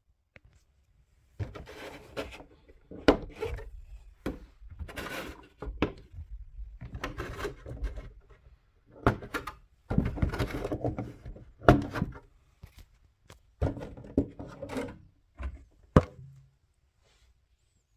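Handling noise from taking the plastic body shell off a Traxxas Raptor R RC truck: irregular rubbing, rattling and knocks of the shell against the chassis, with sharp clicks.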